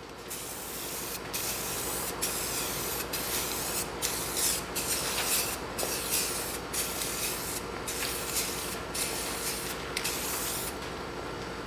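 Hydro-dipping activator hissing out of a spray onto the floating film in repeated passes, with a brief break about once a second, until the spraying stops near the end.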